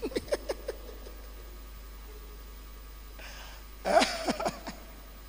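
Short snatches of voice in the first second and again, louder, about four seconds in, with quiet room tone between.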